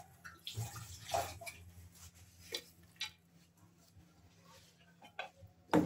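Scattered light taps and knocks of hands and ingredients handled in an aluminium pressure cooker, with one sharper knock near the end.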